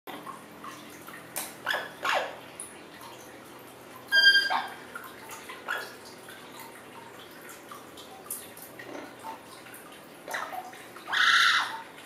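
Orange-winged amazon parrot making a series of short chirps and clicks, with a longer, louder squawk near the end.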